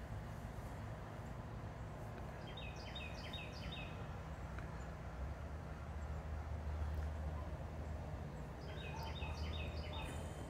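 A songbird singing outdoors twice, each time a short run of four or five quick repeated notes, over a faint, steady low rumble.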